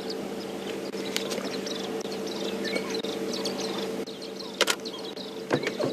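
Outdoor bush ambience: insects and scattered short high chirps over a steady low hum, with two sharp clicks near the end.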